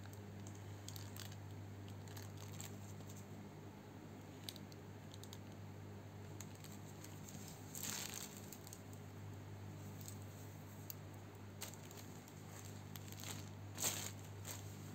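Faint rustling and crinkling of a T-shirt and its clear plastic packaging bag being handled, with two brief louder rustles about eight seconds in and near the end, over a steady low hum.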